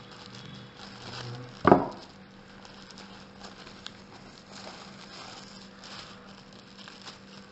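Paper leaflets and packaging being handled, with soft rustling throughout and one sharp knock a little under two seconds in.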